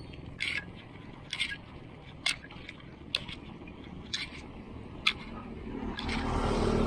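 A bicycle ridden along a concrete road, with a sharp click about once a second over low road rumble. Near the end an oncoming motorcycle's engine grows louder.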